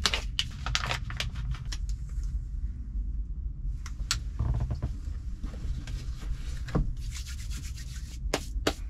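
Rustling and scattered light clicks as food packets and cooking gear are handled, over a steady low rumble.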